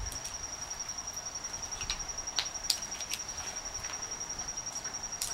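A steady high-pitched insect trill, pulsing rapidly, with a few sharp light clicks about two seconds in, again around three seconds in and near the end, from metal tools and parts being handled at the starter.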